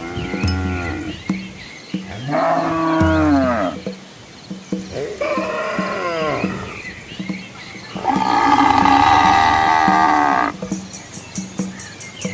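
Cattle mooing: four separate drawn-out calls, each rising then falling in pitch, the last one the longest and loudest.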